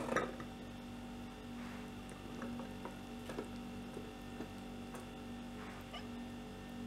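Sweet corn kernels tipped from a bowl onto a cotton cloth in a steel idli steamer. There is a knock right at the start, then faint scattered ticks and light patter, over a steady low hum.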